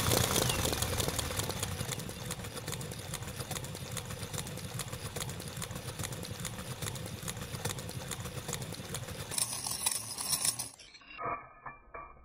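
Model radial engine being turned over without fuel to test its clearances and timing, its valve train and gears clattering in a rapid, steady stream of clicks that slowly fades. About eleven seconds in it cuts off abruptly, leaving a few fainter knocks.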